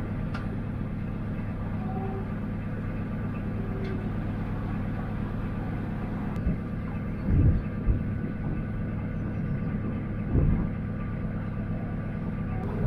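Narrowboat's diesel engine running steadily at cruising speed, a low even drone, with a few brief louder low rumbles about halfway through.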